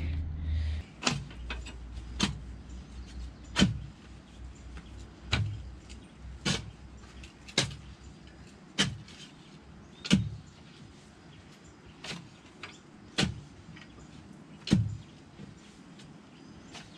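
About a dozen sharp knocks, spaced irregularly one to one and a half seconds apart, over a low steady background.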